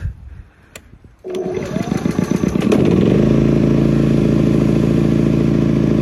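A 3200-watt portable generator engine being started on its electric starter. After a click, the starter cranks for about a second and a half, then the engine catches and settles into a steady, loud run on a cold start with its automatic choke on.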